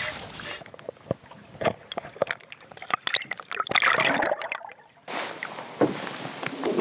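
Water splashing and sloshing as a hooked pike thrashes at the surface beside a boat, in irregular sharp splashes. The splashes drop away briefly about two-thirds of the way through, then start again.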